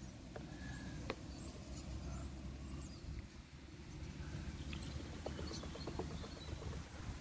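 Quiet outdoor ambience: a low, uneven rumble, faint high bird chirps scattered throughout, and a few light clicks about a second in and again around five seconds in.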